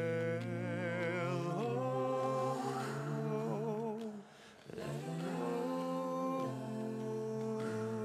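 Slow choral music: voices hold long chords, some notes with vibrato, over a steady low bass note. The sound thins briefly about four seconds in, then the chord resumes.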